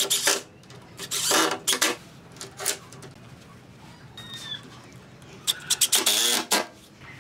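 Makita cordless impact driver driving screws into the wooden edge of a door in several short bursts, the longest near the end, as the steel roller hanger hardware of a sliding barn door is fastened on.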